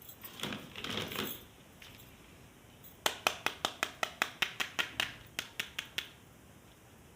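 Plastic toy pieces being handled: a brief rustle and scrape, then a quick, even run of about sixteen sharp plastic clicks, roughly five or six a second, stopping about a second before the end.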